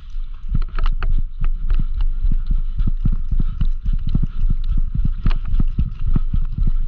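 Running footsteps of an airsoft player carrying the camera, irregular thumps about three to four a second with gear jostling, over a steady low rumble of wind on the microphone.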